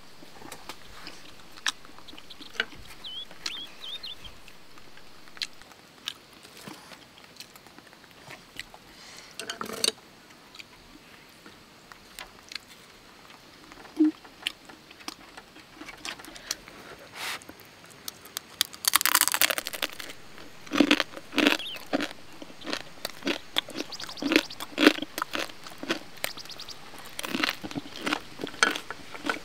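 Someone eating: irregular crunching and chewing, busier in the second half.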